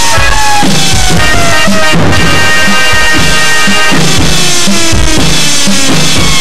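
Electronic dance music: a loud, fast drum-kit beat with kick and snare, under synth tones that slide slowly downward in pitch and start again about every two seconds.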